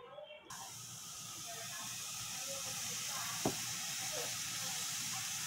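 Ham steak sizzling on a hot barbecue grill grate, a steady hiss that slowly grows louder, with one sharp click about three and a half seconds in.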